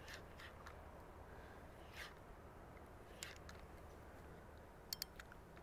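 Near silence: a faint steady outdoor hush with a few soft clicks, two of them close together near the end.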